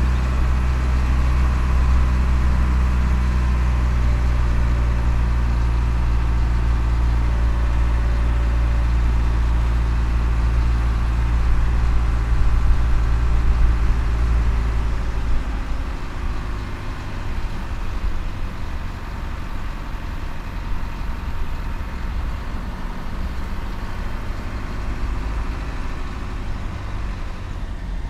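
Game-drive vehicle engine running as it drives, a steady low drone that drops away about halfway through, leaving a rougher rumble.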